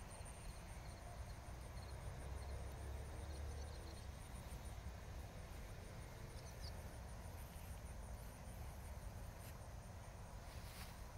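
Insects chirping in an even, rapid high pulse, with a low rumble underneath.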